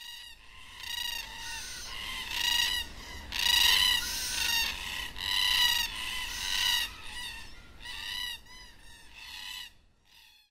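Red-tailed black cockatoo calling over and over: harsh, rolling squawks about two a second, which stop just before the end.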